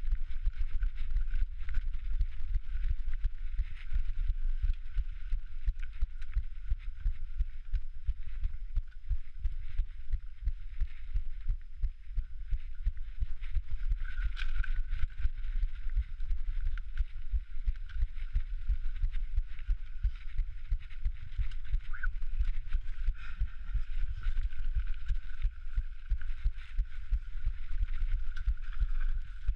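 A mountain biker's heartbeat picked up by a body-worn microphone: continuous deep thumping, mixed with dense knocks and jolts from riding a rough downhill trail, with a faint steady whine above it.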